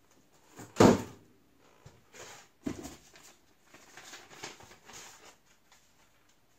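Unboxed welding kit and packaging being handled: a loud knock about a second in, a smaller one near three seconds, then light rustling and clicking of parts being picked up.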